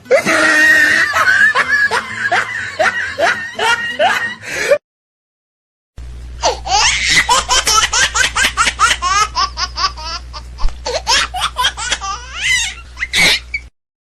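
Two laughter sound-effect clips, one after the other, each a run of quick, repeated bursts of hearty laughing. They are split by about a second of silence, and a faint steady hum sits under the second one.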